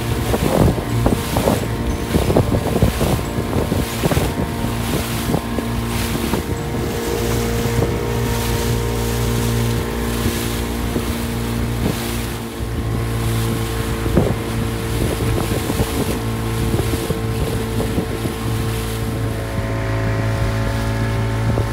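A small motorboat's engine running steadily under way, with water splashing and slapping against the hull now and then, and wind buffeting the microphone.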